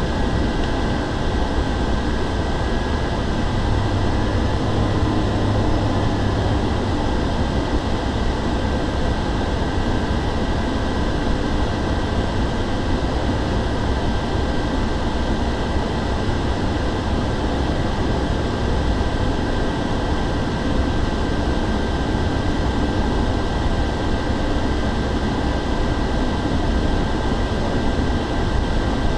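The TBM 850's Pratt & Whitney PT6A turboprop and its MT propeller running steadily, heard from inside the cockpit: a constant dense rumble with a steady high turbine whine over it.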